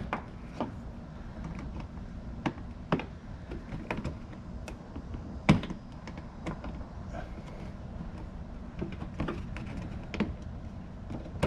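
Irregular plastic clicks, taps and knocks of hands working the plastic wheel-well liner and its push clips, with one sharper knock about halfway through.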